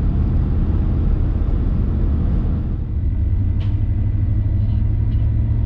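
Pickup truck driving at highway speed, heard from inside the cab: a steady engine and road rumble with a low, even hum. There is one brief tick a little past halfway.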